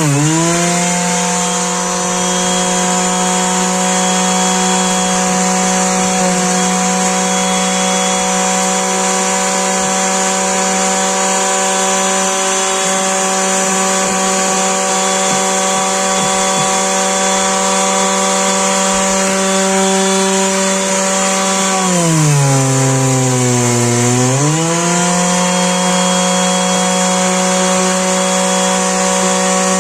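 Electric vibration sander running steadily against a fabric car mat to shake the dust loose, a buzzing motor hum over a high hiss. About three quarters of the way through, the motor slows for a couple of seconds, its pitch sagging, then picks back up to speed.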